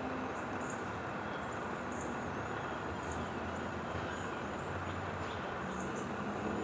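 Steady outdoor background hum with a short, high chirp repeating every second or so.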